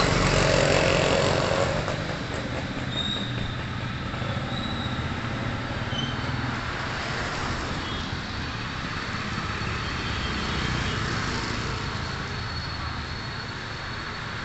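Jet engine roar of an Emirates Boeing 777-300ER climbing away after takeoff, loudest in the first two seconds and then settling to a steady, distant rumble.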